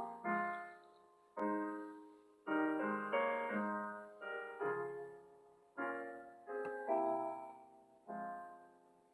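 Slow solo piano introduction: chords struck one after another, each left to ring and fade away. The playing stops just before the end.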